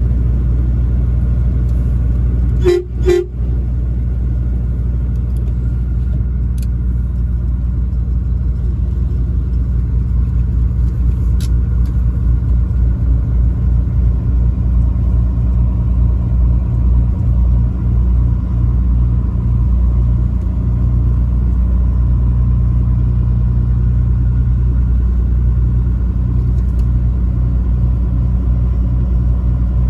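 Truck driving with a steady low engine and road rumble. About three seconds in, the truck's horn gives two short toots.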